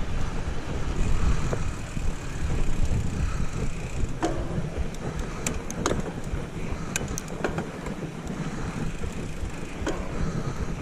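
Mountain bike rolling slowly downhill over loose gravel and sand, the tyres crunching, with wind rumbling on the camera microphone. A few sharp clicks and rattles come through the middle.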